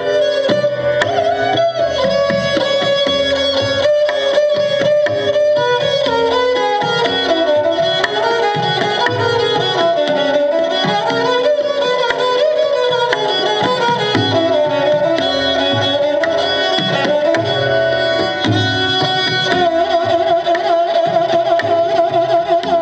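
Hindustani classical duet: a bowed sarangi playing gliding melodic phrases over tabla strokes. Near the end the sarangi holds one wavering note.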